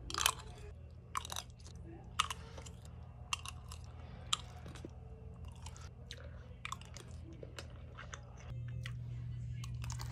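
Close-up chewing of a mouthful of macaroni and cheese: wet mouth clicks and smacks at irregular intervals over a low steady hum.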